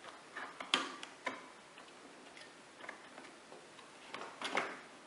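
Scattered light clicks and taps of a graphics card and PC parts being handled while fitting the card to a motherboard. The sharpest click comes about a second in, with another pair near the end.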